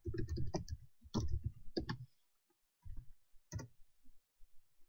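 Typing on a computer keyboard: a quick run of keystrokes for about two seconds, then a few single key presses.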